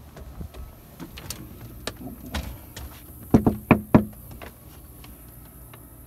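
Footsteps on wooden boards, then a quick run of three or four loud knocks on a door, with a hollow ring.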